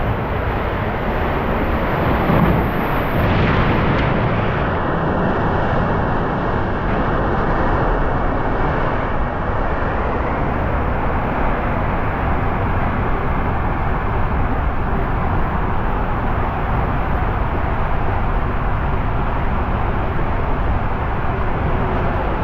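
Raft sliding down a fiberglass water-slide tube: a steady rush of running water and the raft on the flume, a little louder about two to four seconds in.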